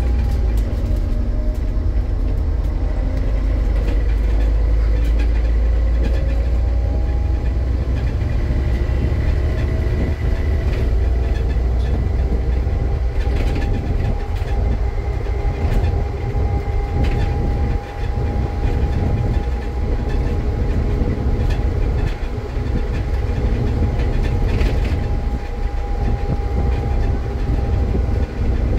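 Scania N230 bus heard on board while under way: a steady diesel rumble, with driveline whines rising over the first few seconds as it picks up speed, then holding level. Occasional knocks and rattles come from the body.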